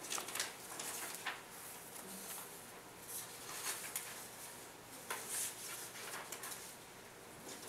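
Sheets of paper rustling and being set down, with a few light knocks on desktops, as classroom materials are handed out.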